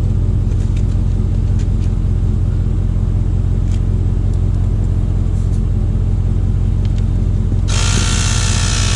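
Jeep Grand Cherokee WJ 4.7-litre V8 idling steadily at about 700 rpm. About three-quarters of the way in, a cordless tire inflator starts up suddenly with a loud buzz over the idle.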